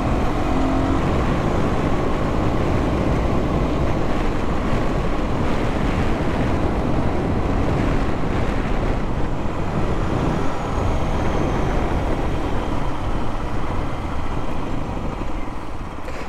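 Steady wind rush and engine of an Aprilia RS 125 GP Replica, a single-cylinder four-stroke 125 cc motorcycle, while riding, heard through a microphone inside the rider's helmet.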